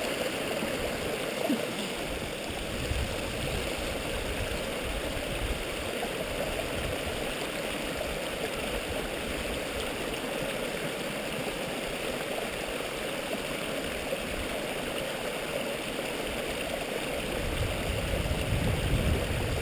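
A small stream running over rocks, a steady rushing, gurgling flow of water, with some low rumbling near the end.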